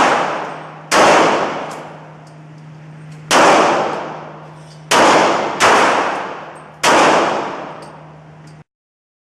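Six single gunshots at an irregular pace, each a sharp crack followed by a long echoing decay. The sound cuts off abruptly near the end.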